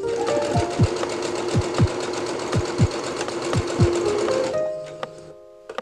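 Electric domestic sewing machine stitching at a steady fast rate, then stopping about four and a half seconds in.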